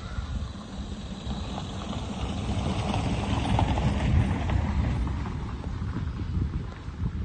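A motor vehicle passing by, its noise swelling to a peak midway and then fading, over low rumble from wind on the microphone.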